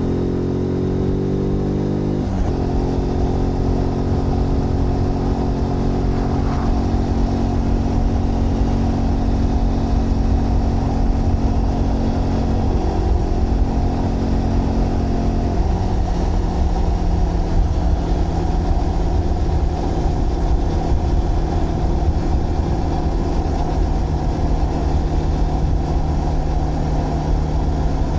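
Zontes GK 125 single-cylinder engine pulling while being ridden. Its note climbs for about two seconds, drops sharply at a gear change, then holds fairly steady at cruising speed, with small shifts in pitch around the middle. Wind and road noise rush underneath.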